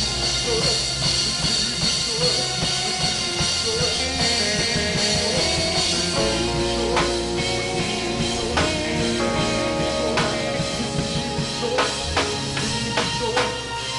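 Worship band playing: sustained keyboard chords with a drum kit, sharp drum hits and cymbal crashes from about halfway through, and faint singing.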